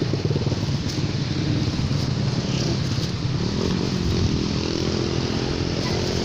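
Passing traffic of small motorcycle engines, including a motorcycle-sidecar tricycle, running steadily with their tyres on a wet road.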